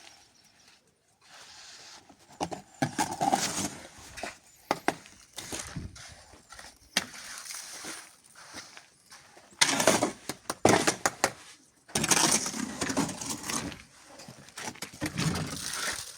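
Hand tools scraping and knocking in sand-and-cement mortar as a floor is spread and levelled, in irregular gritty scrapes with sharp knocks, loudest past the middle.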